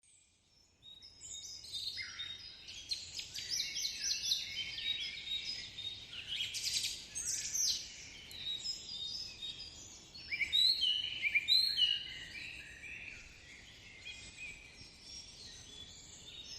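Many birds calling at once, a dense chorus of short high chirps and quick rising and falling whistles. It fades in about a second in and is loudest a little past the middle.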